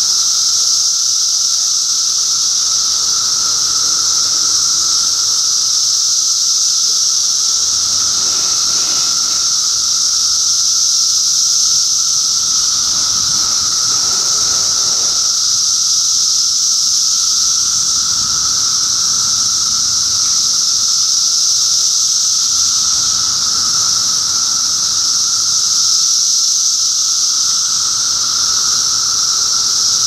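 Dense chorus of Brood II periodical cicadas singing together: a loud, unbroken high-pitched drone with a steady lower tone beneath it, neither dropping out.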